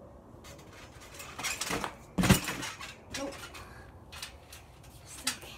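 Trampoline bouncing: feet land on the mat with a heavy thump about two seconds in, amid clinks and rattles from the springs and frame, and a sharper click near the end.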